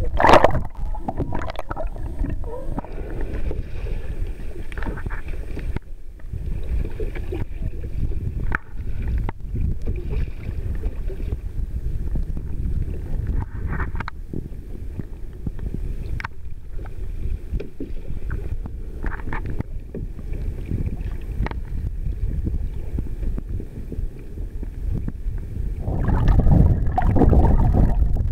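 Water rushing and sloshing around a camera held at and under the sea surface, a steady low rumble with scattered sharp clicks. A loud knock comes just after the start, and the water noise swells louder in the last two seconds.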